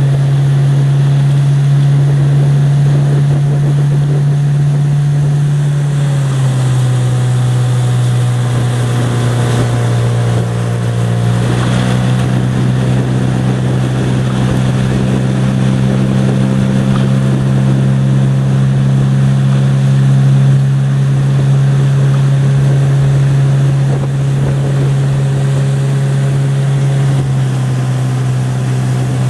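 Motorboat engine running steadily at a constant speed, its pitch stepping slightly a few times.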